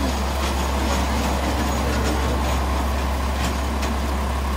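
Diesel railcar's engine idling alongside: a steady low hum with a few faint clicks.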